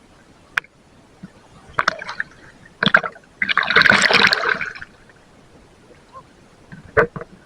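Water splashing: one surge of splashing lasting about a second and a half in the middle, with a few short knocks and splashes before and after.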